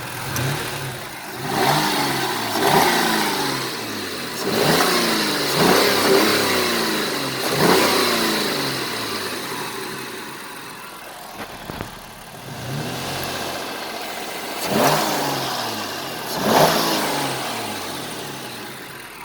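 2002 Mercury Cougar's 2.5-litre V6 revved in quick blips while the car stands still, about eight in all. Each blip rises fast and sinks back to idle, with a longer stretch of idle in the middle. Standing still it does not make the machine-gun-like noise that the owner hears only when driving at about 2,000 rpm.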